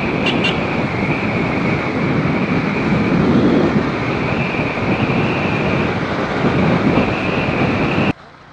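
Wind rushing over the microphone with road and motorcycle noise while riding. It is loud and steady and cuts off suddenly near the end.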